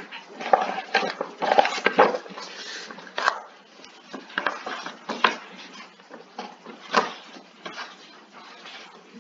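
Irregular clatter of sharp knocks and clinks, busiest in the first couple of seconds, with another loud knock later on.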